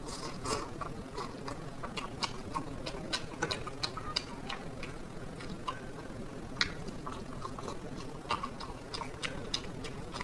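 A person eating black bean noodles close to the microphone: irregular wet mouth clicks and lip smacks of chewing.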